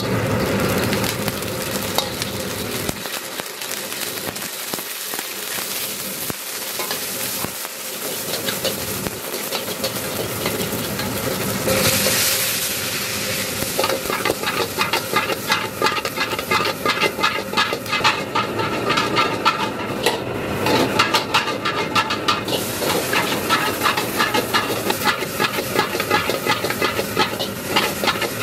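Food sizzling in hot oil in a wok while a metal ladle scrapes and knocks against the pan, stir-frying vegetables. The sizzling swells about twelve seconds in, and from then on the ladle strokes come quick and rhythmic.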